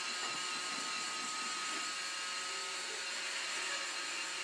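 Roomba robot vacuum running: a steady motor whir with a thin, high whine held level.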